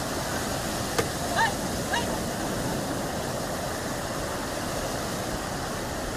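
Sea waves breaking and washing up the beach in a steady rush. There is a sharp click about a second in, and two brief high calls just after.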